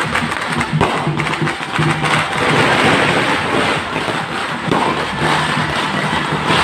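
Temple procession music with a steady droning tone, mixed with the dense crackle of firecrackers that swells about halfway through.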